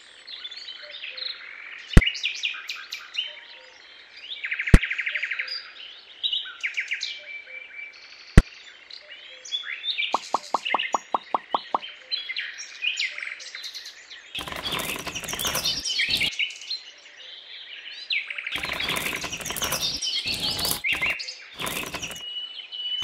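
Small birds chirping and tweeting throughout. Three single sharp clicks fall in the first half, then a quick run of about a dozen ticks. In the second half there are bursts of rustling clatter as small decorative pebbles are laid around a toy pump.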